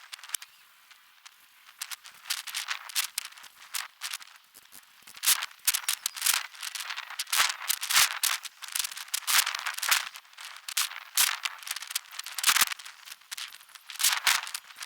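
Irregular clusters of sharp metallic clicks and rattles as bolts are fitted and tightened on the aluminium frame of a full-size football goal.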